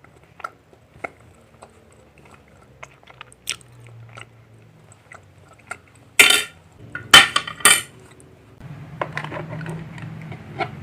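Light clicks and knocks of small objects being handled, with three loud short clattering bursts about six to seven and a half seconds in, then a stretch of rustling and scraping near the end.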